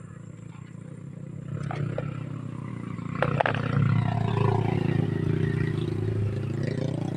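A passing motor vehicle's engine, growing louder over the first few seconds and then easing off slightly, with a few sharp clicks about two and three seconds in.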